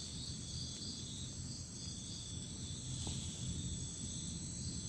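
Chorus of night insects trilling steadily in several high-pitched layers over a low background rumble.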